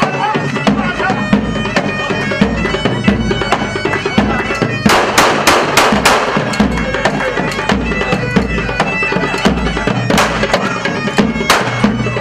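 Wedding procession music: shrill droning reed pipes over a steady drum beat. A quick run of about five sharp cracks comes about five seconds in and two more near the end, which fit shots from a blank pistol held aloft.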